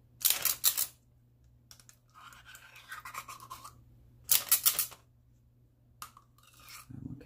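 Metal scooper scraping tomato paste out of a tin can in three short bouts of quick back-and-forth strokes, over a faint steady low hum.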